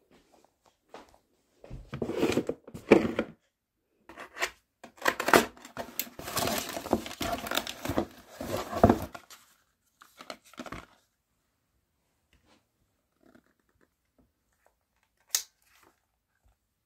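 Crinkling and tearing of some sheet material in irregular bursts, busiest in the middle, then a few faint rustles and one short sharp click near the end.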